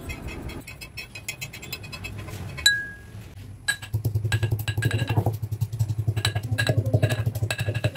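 Metal mortar and pestle pounding dry-roasted whole spices (cumin, coriander, cardamom, cloves, cinnamon): a fast run of dull thuds with a metallic clink on each stroke, starting about four seconds in. Before that, faint scraping and tapping as the spices are spooned into the mortar, and a single ringing metal clink.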